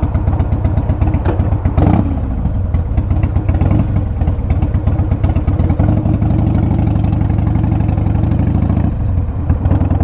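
Harley-Davidson V-twin engine and exhaust running steadily while the motorcycle cruises at a mellow pace, with a brief dip in the engine note about nine seconds in.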